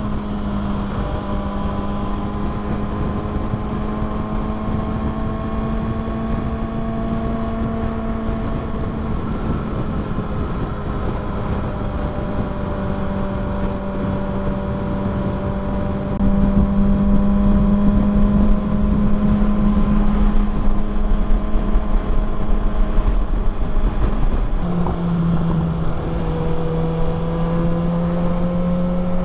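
Kawasaki Ninja ZX6R inline-four engine running at steady road revs, with wind rushing over the microphone. It gets louder about halfway through, and near the end the engine note drops, then slowly rises again.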